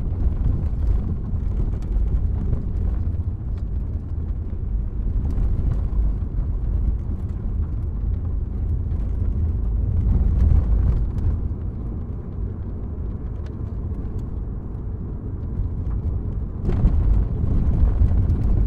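Passenger van driving, heard from inside the cabin: a steady low rumble of engine and road, louder for the last couple of seconds.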